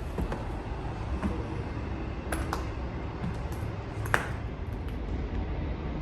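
Low, steady rumble of a passing train heard from inside the building, with a few sharp clicks that ring briefly, the clearest about two seconds in and again about four seconds in.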